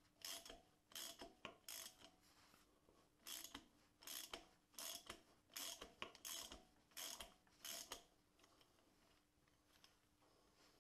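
Ratchet wrench clicking in short bursts as it is worked back and forth on a puller's centre bolt, drawing the harmonic balancer off the crankshaft. About a dozen bursts roughly half a second apart, with a short pause about two seconds in, stopping about eight seconds in.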